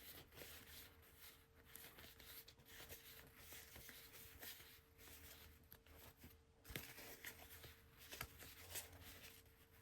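Near silence with faint rustles and light clicks of trading cards being handled and slid past one another, over a faint steady hum.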